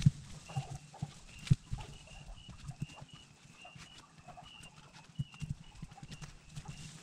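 Short high chirps from a small animal repeating about twice a second, with scattered low thumps underneath.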